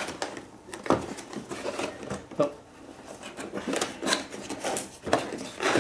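Cardboard box flaps being pried open by hand: irregular rubbing and scraping of cardboard, with a few sharper scuffs.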